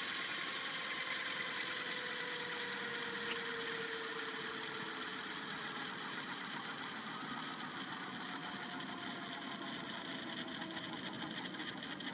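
Electric T-Rex 700E RC helicopter winding down on the ground. The whine of its motor and gears falls slowly in pitch and the rotor swish fades as the blades slow, turning into a fast flutter near the end.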